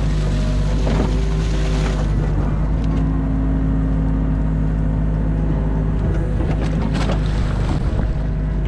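Hydraulic excavator's diesel engine running steadily under load, heard from inside the cab, with a hydraulic whine that shifts in pitch as the boom and bucket move. Brief sharp sounds from the bucket working come about a second in and near seven seconds.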